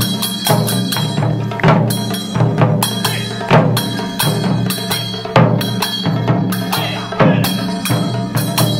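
Japanese taiko ensemble playing a fast, dense rhythm: shoulder-slung rope-tensioned okedo drums and a large barrel drum on a stand struck with sticks, with heavy accented hits about once a second. Small hand cymbals ring steadily over the drumming.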